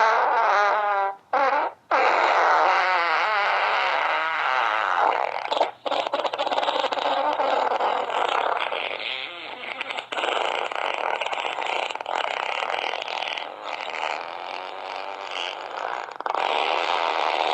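Fart sound effects, a long string of wavering, buzzing blasts that go on almost without a pause, broken only by short gaps about a second in, near two seconds, around six seconds and around ten seconds.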